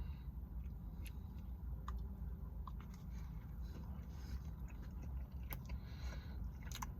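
A person chewing a mouthful of a chicken ring slider, with a few small clicks and crunches scattered through it.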